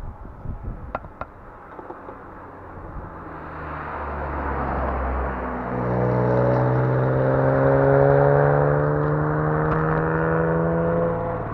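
Yamaha Crypton-X single-cylinder motorcycle engine pulling away and accelerating, its pitch rising steadily over several seconds, after a few light clicks at the start.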